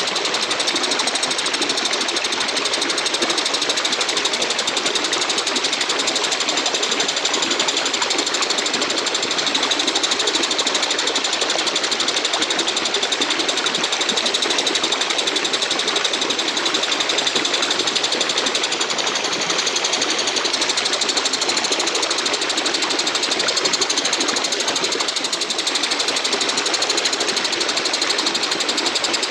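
Walang kecek katydid stridulating: a continuous, rapid, buzzing chirr.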